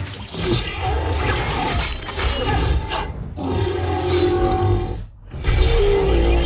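Action-film sound mix: a monster roaring over a dramatic music score, with a short drop in the sound about five seconds in.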